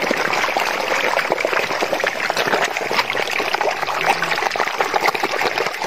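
A dense shoal of hungry rohu fish splashing and churning at the water's surface as they are fed, a steady patter of many small splashes.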